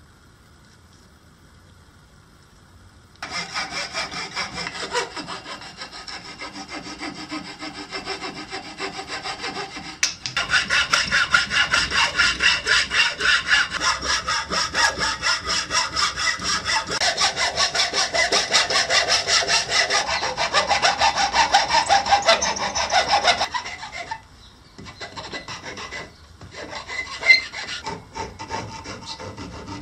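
Hand saw cutting a small wooden knife-handle block clamped in a bench vise, with quick, steady back-and-forth strokes. The strokes start a few seconds in, get louder about ten seconds in, and stop a little past twenty seconds. Near the end come lighter, broken strokes of a flat file rasping the wood.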